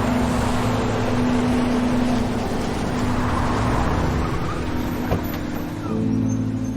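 A vehicle going by: a rushing noise that swells about three seconds in and then eases off, over low held tones.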